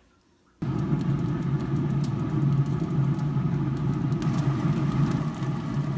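Traeger pellet grill's fan running with a steady hum. It starts suddenly about half a second in.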